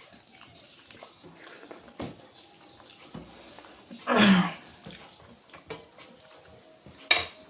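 Quiet eating sounds at a meal eaten by hand: small clicks and smacks. About four seconds in a short sound slides down in pitch, and near the end there is one sharp crack, like papad being broken.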